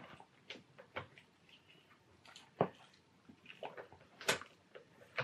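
Handling noise from a white leather bag strap and its hardware being fitted by hand: scattered light clicks and knocks over soft rustling, the loudest about two and a half seconds in and just after four seconds.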